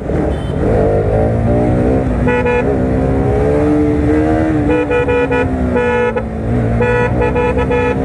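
Bajaj Pulsar RS200 motorcycle engine running in traffic, its pitch drifting gently up and down, while a vehicle horn honks in several short blasts from about two seconds in.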